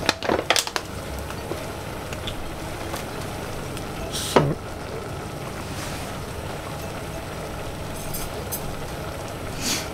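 Steady hiss from pans on a stovetop, with a sharp bump about four seconds in.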